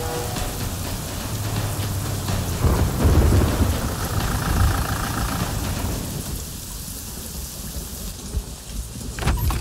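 Heavy rain falling steadily, with a rumble of thunder swelling about three seconds in and fading over the next few seconds.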